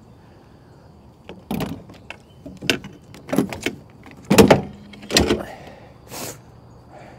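Clanks and knocks of gear being handled and secured in a pickup truck bed, about eight sharp hits spread over a few seconds. The loudest comes about halfway through and rings briefly.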